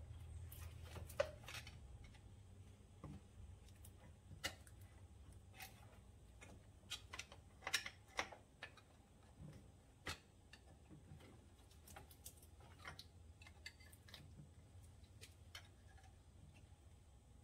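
Scattered light clicks and taps from parts and hand tools being handled while a seized engine is being pulled apart, over a low steady hum. The sharpest click comes about a second in, and several more cluster about halfway through.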